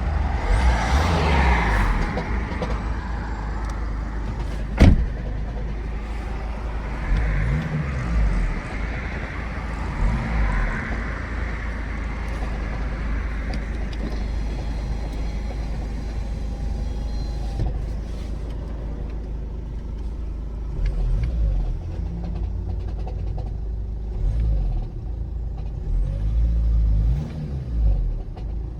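Volkswagen Passat B6's 2.0 TDI CBAB diesel engine running with a steady low rumble, over which irregular low knocks come and go, plus one sharp click about five seconds in. The owner calls it a terrible knocking of unknown cause, an intermittent fault that shows up every couple of days and clears once the engine is switched off and restarted.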